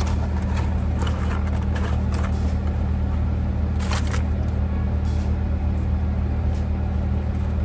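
Car engine idling, heard as a steady low drone inside the cabin, with a few light clicks and scrapes about one, two and four seconds in.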